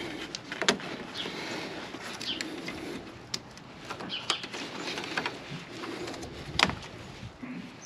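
Hands working a plastic quick-connect clip and rubber fuel hoses loose in a car's engine bay: scattered clicks and rattles with handling rustle, the sharpest click a bit over six and a half seconds in.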